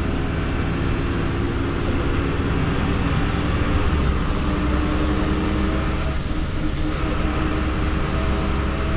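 Jelcz M121M city bus on the move, heard from inside the passenger cabin: a steady engine hum mixed with road noise.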